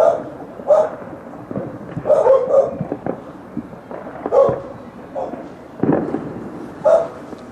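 A dog barking repeatedly, about eight short barks a second or so apart, with fireworks popping and cracking behind it.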